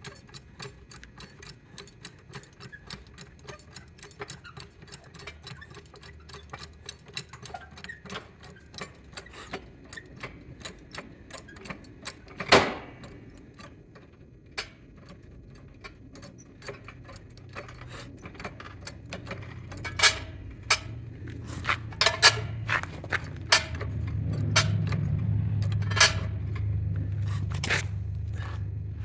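Metal hand tools working on a mower deck's blade bolts: rapid small metallic clicks and clinks, a sharp metal knock about twelve seconds in, and a cluster of louder clinks near the end over a low hum that builds in the second half.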